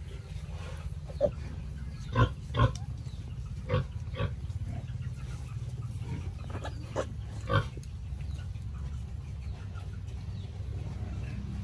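Piglets giving several short calls, scattered over a few seconds with a close pair among the loudest, over a steady low rumble.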